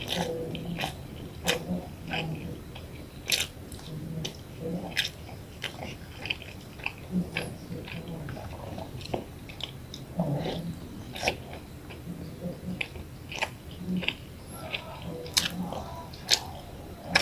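Close-miked chewing of white rice and boiled eggplant: irregular wet mouth clicks and smacks, a few each second.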